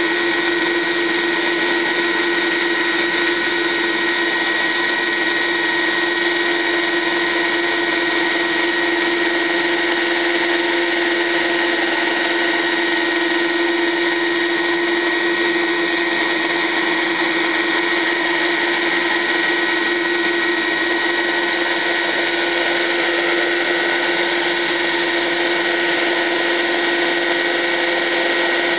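UH-72 Lakota helicopter running on the ground with its rotors turning: a loud, steady turbine whine over a constant rush, unchanging throughout.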